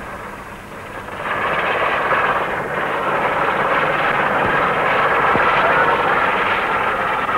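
Fairey Ultra-light Helicopter's rotor-tip jets at full power in a steep climb: a loud, steady rushing noise that swells about a second in. It is heard through a dull, band-limited old television film soundtrack.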